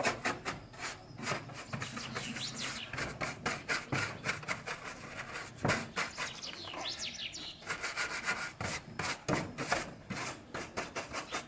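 Hand-sanding a wooden panel door: rapid back-and-forth rasping strokes across the wood, several a second, with brief pauses. A few bird chirps sound in the background.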